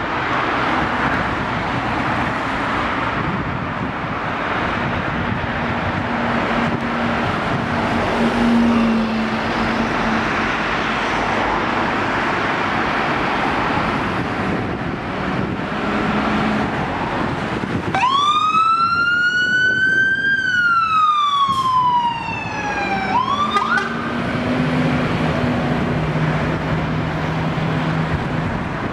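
Scania P320 fire engine's diesel engine running as the emergency tender pulls out. About two-thirds of the way through, its siren gives one slow wail, rising and then falling, followed by two quick yelps, and then the engine is heard again as the truck drives off.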